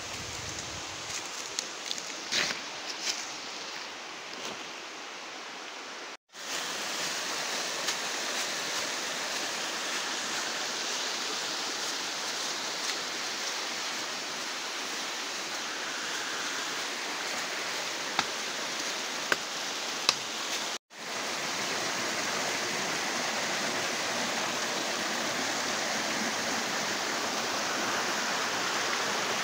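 A stream running over rock, a steady rush of water that grows louder after the first few seconds. A few light clicks sound over it near the start.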